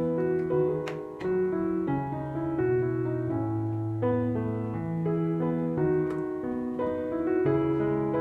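Background piano music: a gentle melody over steady bass notes that change in even steps.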